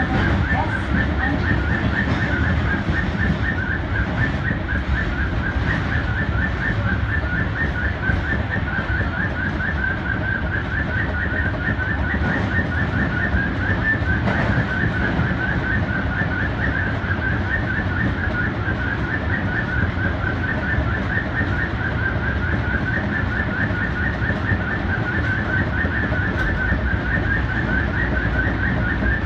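Osaka subway 25 series train running through the tunnel, heard from inside the car: a steady low rumble with a warbling high-pitched whine over it.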